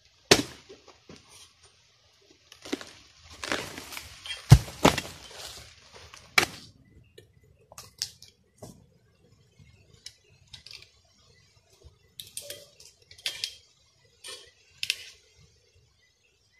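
A harvesting blade chopping into the frond bases of an oil palm: a few sharp, hard blows in the first seven seconds, the loudest a heavy thud about four and a half seconds in, with rustling of palm fronds. After that come scattered lighter cracks and rustles.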